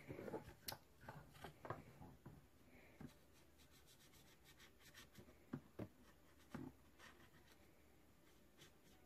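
Faint scratching of a green marker coloring on paper, with scattered light clicks and taps of the pen and page.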